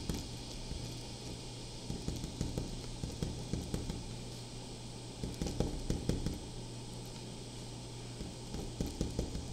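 Ballpoint pen writing Japanese characters on paper: soft, irregular scratches and small taps of the pen tip in clusters, over a steady low hum.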